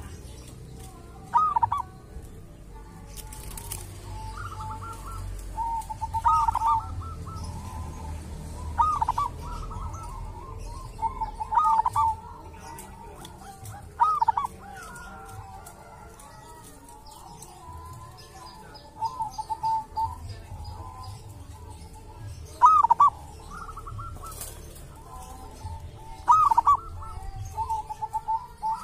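Zebra dove (perkutut) singing: repeated short cooing phrases every few seconds, each a loud warbled note followed by softer rolling coos.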